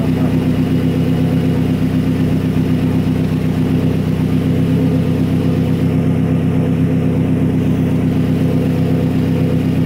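Mazdaspeed3's turbocharged four-cylinder engine idling steadily, heard from inside the cabin.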